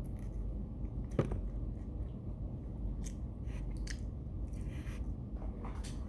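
A person chewing and biting crunchy raw salad vegetables, cucumber and pepper, close to the microphone, with several short crunches scattered through. A steady low hum runs underneath.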